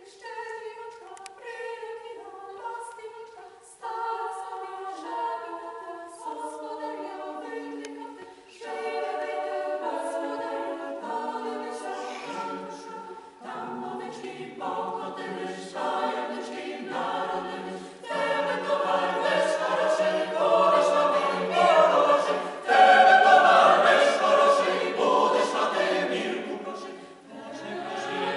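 Mixed choir singing a cappella. It begins softly in the higher voices, lower voices come in about nine and fourteen seconds in, and the sound swells to its loudest about three-quarters of the way through before easing off near the end.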